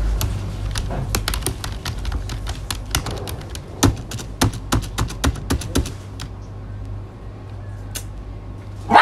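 Typing on a computer keyboard: irregular keystroke clicks, thick for about the first six seconds, then only a few, over a steady low hum.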